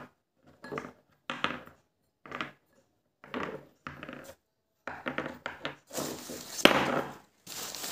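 Small terracotta clay pots being set down one after another on a table: a series of light knocks and clinks, about one a second. About six seconds in, paper packing rustles, with one sharp click.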